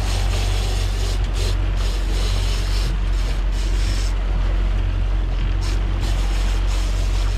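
Outboard motor running steadily as the boat trolls, a low even drone, mixed with the rush of wind and water from the wake.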